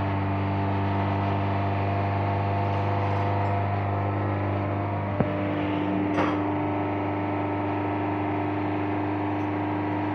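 Honda Stream's four-cylinder engine running steadily at a held, raised speed of about 2000–3000 rpm, the run-up used after a combustion-chamber carbon-cleaner treatment. A single sharp click sounds about five seconds in.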